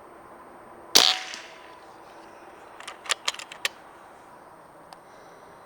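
Beeman Commodore .177 pellet rifle firing a single loud shot about a second in, with a short ringing tail. About two seconds later comes a quick run of about five clicks, then one faint click.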